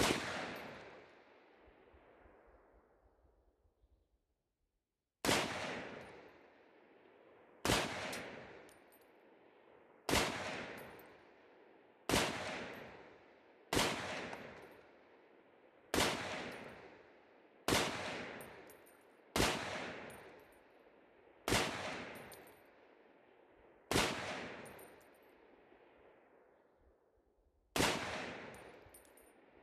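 M1A Tanker, a .308 semi-automatic rifle with a muzzle brake, fired twelve times as slow aimed shots: one shot, a pause of about five seconds, then a shot roughly every two seconds. Each sharp report trails off over a second or so.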